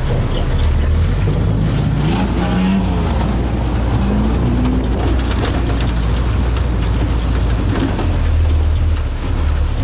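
Toyota Hilux LN106's diesel engine running as the pickup wades forward through shallow river water, heard from its open bed, with a steady low rumble.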